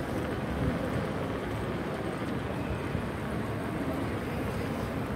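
Steady low wind rumble on the microphone of a camera moving with a cyclist.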